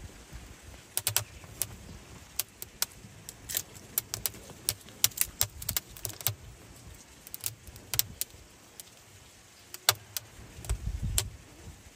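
Thin split-wood kindling catching fire in a clay oven: irregular sharp crackles and pops. Near the end there is a low rumble as wooden splinters are pushed into place by hand.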